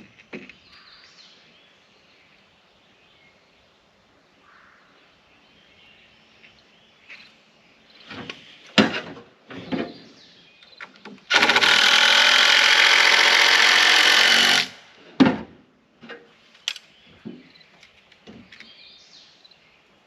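A power drill runs steadily for about three seconds, a little past the middle, driving a screw into a wooden board. Scattered knocks and clicks from handling the boards come before and after it.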